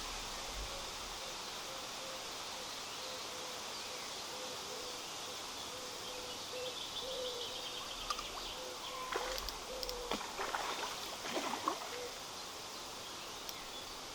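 Steady rush of a shallow river flowing, with birds calling over it. About nine to twelve seconds in, a short run of clicks and rustles cuts in.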